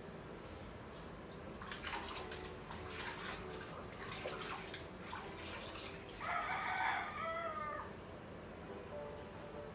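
Dishes and utensils clinking at a kitchen sink, with a little water. About six seconds in, a rooster crows once, the loudest sound, lasting about a second and a half.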